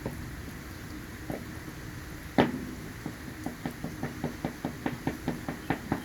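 Steady rain hiss under a single sharp knock about two and a half seconds in, then a quick, even run of light taps, about five a second, for the last three seconds.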